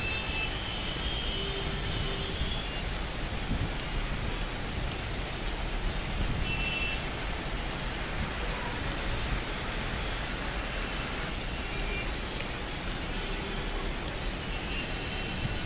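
Steady hiss of rain, with a few short faint high tones here and there.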